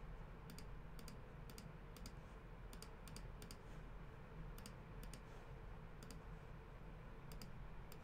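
Faint, irregular clicks of a computer mouse, about a dozen, some in quick pairs, over a low steady background hum.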